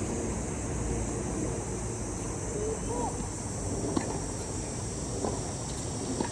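Tennis ball impacts, three short sharp knocks about four, five and six seconds in, over steady open-air background noise with a faint steady high insect-like tone.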